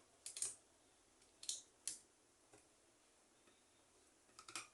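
Pliers gripping and working a stripped screw loose from a small electric fan's housing: a few faint, sharp metallic clicks in small clusters, near the start, twice in the middle and near the end.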